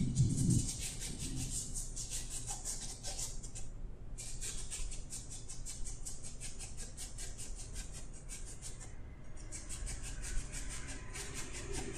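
A small paintbrush dabbing and stroking acrylic paint onto a stretched canvas: rapid, short, scratchy bristle strokes in quick succession, pausing briefly about four seconds in and again about nine seconds in.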